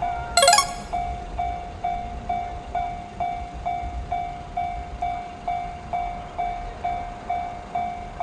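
Japanese level-crossing warning bell ringing, a steady repeated electronic ding at a bit under two strikes a second. About half a second in comes one short, loud, bright ringing hit.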